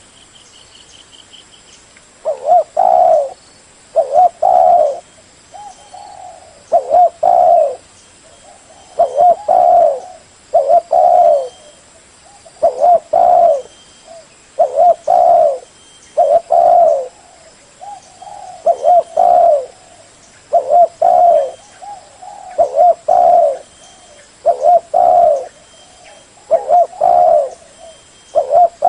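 Spotted dove cooing a repeated phrase of two or three low notes, about once every two seconds: a decoy dove's call. Faint small-bird chirps sit behind it.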